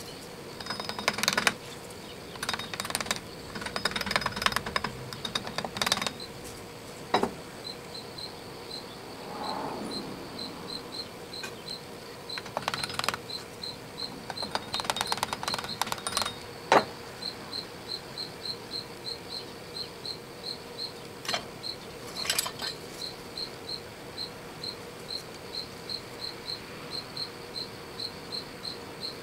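Small metal tools clicking, tapping and scraping against the patterns and the aluminum flask as the split pattern halves are rapped loose and drawn from the sand mold, in scattered bursts with one sharp knock. Through the second half a faint high chirp repeats evenly about three times a second.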